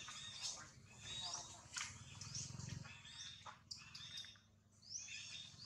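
Outdoor ambience of high, short chirps that rise in pitch, repeating about once a second, over a low hum.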